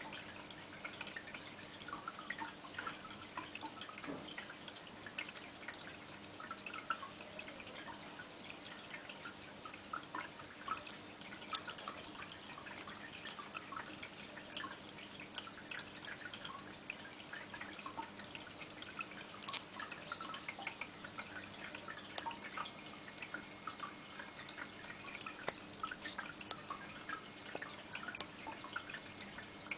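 Aquarium water dripping and trickling: a continuous patter of small splashes, over a faint steady hum.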